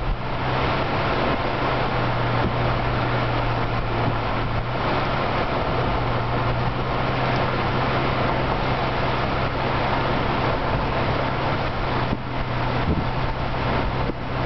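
A car driving at a steady speed: a steady low engine drone under continuous tyre and wind noise, easing briefly about twelve seconds in.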